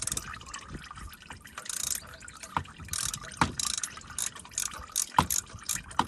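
A ratcheting oil filter wrench clicking and clinking as it loosens the oil filter, in irregular sharp clicks with a few louder knocks, over a faint trickle of draining oil.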